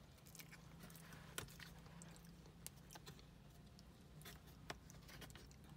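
Near silence inside a car: a faint steady low hum with a few soft, scattered clicks.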